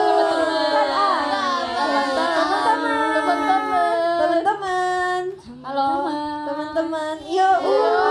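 Young women's voices over stage microphones singing a short phrase, with held notes and a brief break about halfway through.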